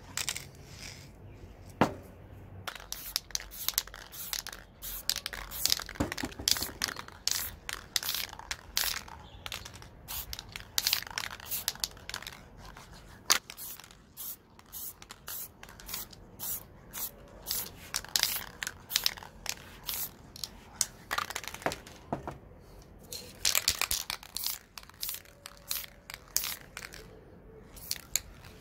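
Aerosol spray paint cans sprayed in many short hissing bursts of varying length, with a few sharp clicks in between.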